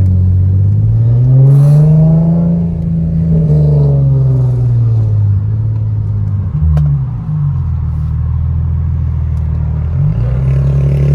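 Infiniti G37's V6 engine revving as the car drives: the pitch climbs for a couple of seconds, then eases off slowly. It dips sharply and picks back up about two-thirds in, then holds steady and rises again near the end.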